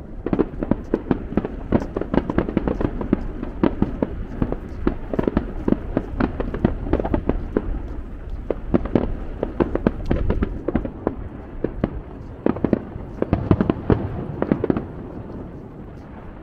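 Aerial fireworks bursting in a rapid barrage of bangs and crackles, several a second, that dies down about a second and a half before the end.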